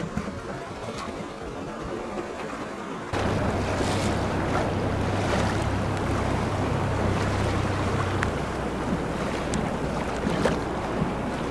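Zodiac inflatable boat under way: the outboard motor runs under the rush of sea water and wind buffeting the microphone, with scattered splashes. The sound gets suddenly louder about three seconds in, with a steady low motor hum until about eight seconds.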